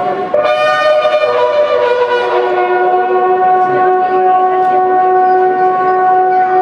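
Bugles sounding long, held notes at the flag-lowering, two calls at different pitches overlapping; one note slides lower over the first couple of seconds.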